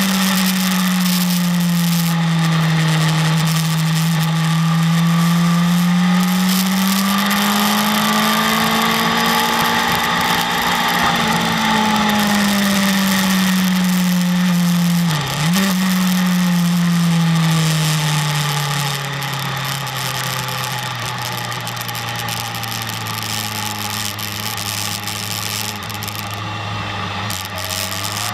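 BMW S1000RR's inline-four engine heard from on board at track speed, its note slowly rising and falling with the throttle over steady wind rush. About halfway through the pitch dips sharply for a moment and comes back, and from a few seconds later the engine runs at a lower, slightly quieter pitch.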